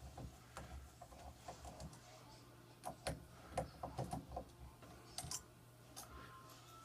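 Irregular small clicks and taps of a door handle's metal parts and screws being worked loose and handled as the broken handle is taken apart, busiest in the middle of the stretch.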